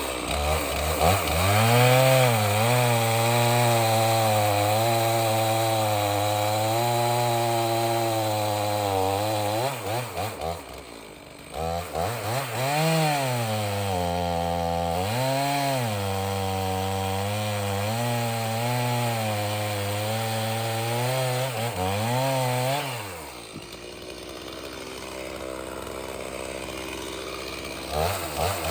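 Stihl MS 391 two-stroke chainsaw running near full throttle while cutting firewood rounds; its pitch sags and recovers as the chain loads up in the wood. It drops off briefly about ten seconds in, and again for a few seconds near the end, before revving back up.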